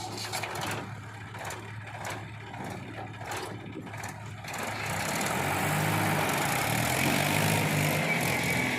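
Heavy diesel engine of earthmoving machinery running steadily, with scattered knocks and clatter. About halfway through it revs up and grows clearly louder, as under load.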